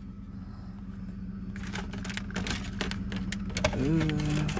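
Rapid clicking and rattling of plastic interior trim and wiring being handled in a truck cab, starting about a second and a half in, over a steady low hum. There is a short hummed voice sound near the end.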